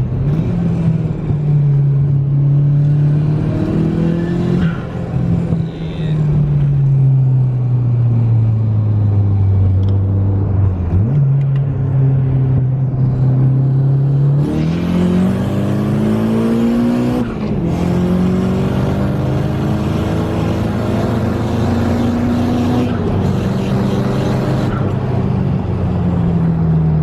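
Nissan 240SX's SR20 four-cylinder engine driving on the street: the engine note sinks slowly as the car eases off, then climbs under acceleration about halfway through. It drops suddenly at a gear change and climbs again.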